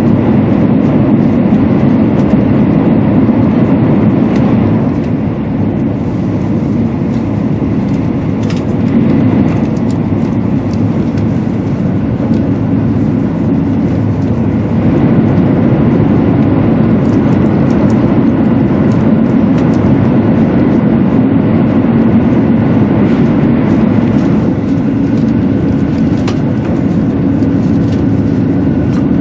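Cabin noise of a Shinkansen 200 series train running at high speed: a loud, steady rumble of wheels on rail and air rushing past the body, with a faint steady whine above it.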